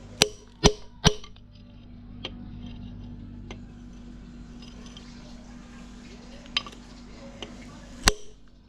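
Metal tools and engine parts clinking and knocking together during engine work. There are three sharp clinks in the first second, a few lighter taps, and another loud clink near the end, over a steady low hum.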